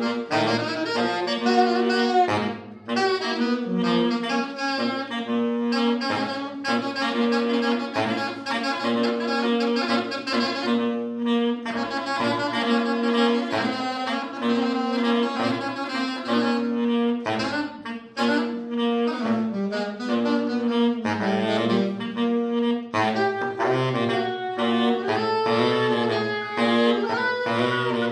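Two saxophones improvising freely together: one holds a long low note for stretches of several seconds while the other plays busy, shifting lines above it.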